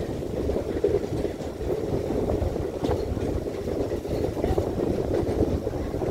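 Passenger train running along the track, heard from an open door of a moving coach: a steady rumble of wheels on rails, with a few faint clicks.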